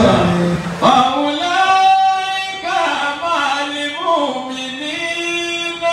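A man's voice singing a chanted melody into a microphone, unaccompanied, gliding between notes with a couple of long held notes.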